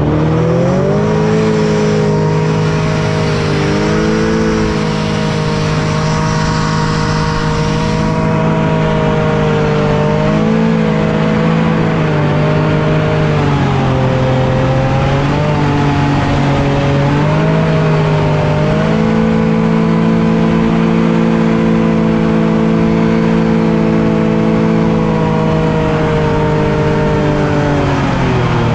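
SCAT hovercraft engine and fan running hard under way. The pitch climbs as the throttle opens at the start, sags about halfway through, picks up again, and drops away near the end.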